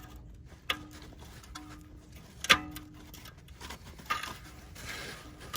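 Sharp metallic clicks and knocks as a parking brake cable's retaining clip is worked out through the slot in its bracket. There are four clicks spread over a few seconds, and the loudest comes about two and a half seconds in.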